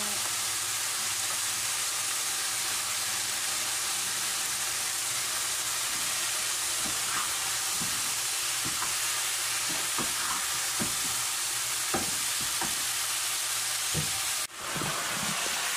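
Chicken feet in sweet soy sauce sizzling in a frying pan over a gas flame, with a spatula scraping and knocking against the pan as they are stirred. The sizzle drops out abruptly for a moment near the end, then resumes.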